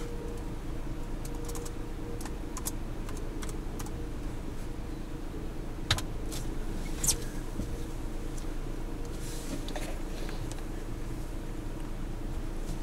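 Steady low hum of an idling vehicle, with scattered small clicks and taps of handling noise; two sharper clicks come about six and seven seconds in.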